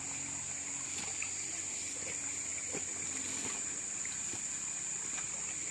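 Steady high-pitched drone of insects, with a flowing river's water sound beneath it and a few faint clicks.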